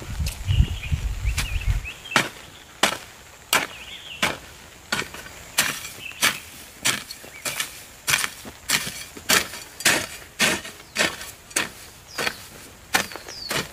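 A hoe blade chopping into dry garden soil in a steady rhythm, about three strikes every two seconds, starting about two seconds in. Before that there are low thuds.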